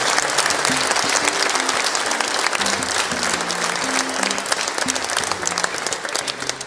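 Audience applauding over music with a moving bass line. The clapping slowly thins out toward the end.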